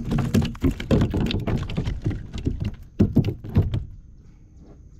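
Hands handling a freshly caught snapper and its two-hook lure on a plastic kayak: a quick run of knocks, taps and rattles that stops about a second before the end.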